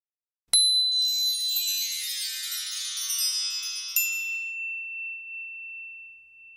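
Shimmering chime flourish: a sudden strike sets off a cascade of high tinkling tones, and a second strike about four seconds in leaves a single high tone ringing as it fades away.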